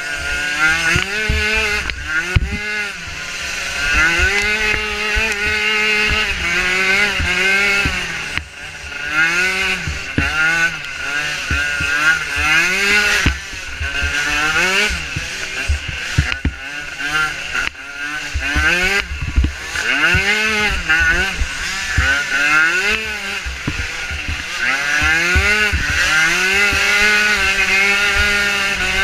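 Small micro ATV engine revving up and falling off again and again as the throttle is worked over uneven ground, with frequent low thumps and knocks from the machine bouncing.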